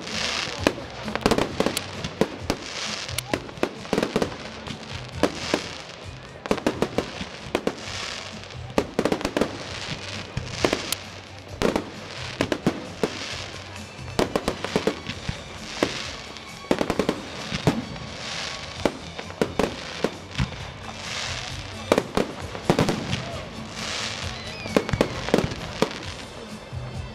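Fireworks display: a rapid run of sharp shell bangs and crackling bursts, with music playing underneath. Near the end there is a brief falling whistle.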